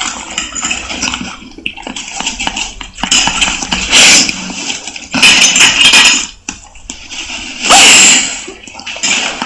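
Water rushing and splashing in loud surges, the loudest about four, five to six, and eight seconds in.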